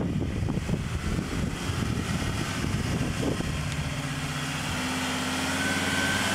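Ford Ranger dual-cab ute's engine running at low revs as it crawls over a rutted dirt track, with an uneven low noise for the first three seconds, then settling into a steady hum. A thin steady high tone joins near the end.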